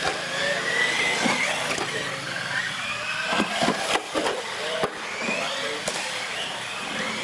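Electric motors of radio-controlled trucks whining, their pitch rising and falling as the trucks speed up and slow down, with a few sharp knocks near the middle.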